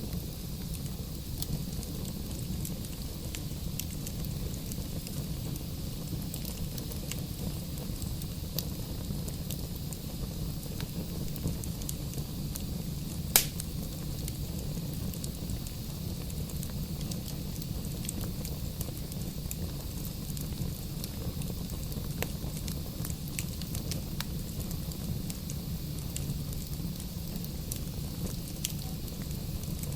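Wood fire burning in a fireplace: a steady low rumble of flames with scattered small crackles of the firewood, and one sharp, louder pop about halfway through.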